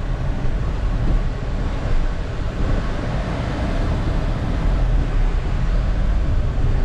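Steady cabin noise inside a Skoda Slavia 1.0 TSI on the move: tyre and road rumble with the engine's low drone underneath.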